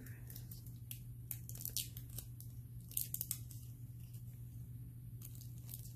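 Thin nail transfer foil crinkling and crackling as gloved fingers peel it off glued shapes on a rock, in scattered small crackles with a denser run about three seconds in.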